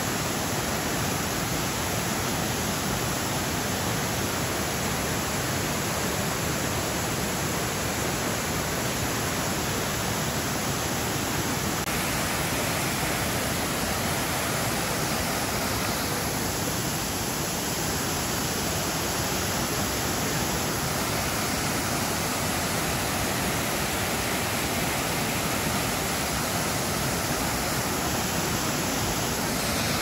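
Several waterfalls spilling over a cliff into a lake pool: a steady, even rush of falling and splashing water.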